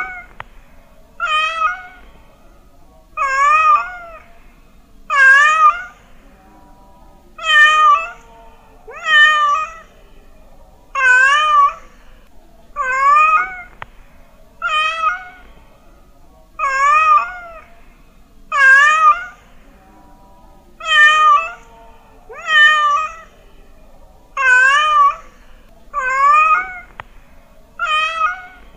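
A domestic cat meowing over and over, about one meow every two seconds, each a short call that wavers in pitch.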